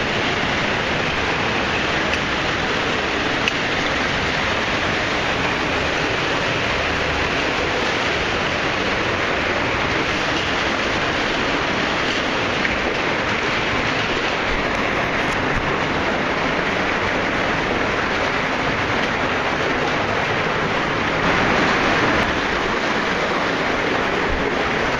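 Loud, steady rush of water falling in a cave waterfall, swelling briefly a few seconds before the end.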